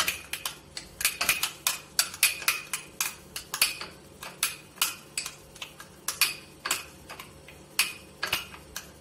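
A small utensil clinking and scraping against a glass dish as green chutney paste is beaten into curd, in quick irregular taps about three a second.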